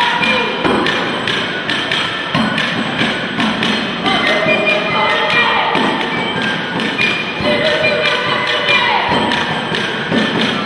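Folk music for a Romanian capra (goat) dance: a steady thumping beat, several strikes a second, with sliding pitched notes over it.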